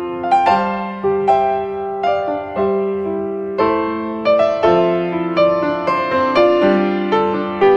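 Background piano music: a gentle melody over chords, notes struck about two or three times a second.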